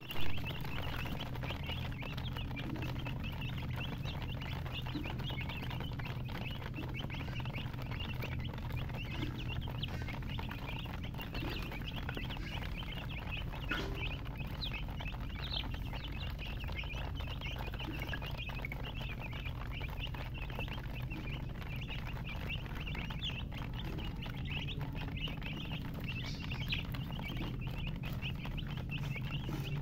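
A group of baby chicks peeping continuously, many short high chirps overlapping, over a steady low hum.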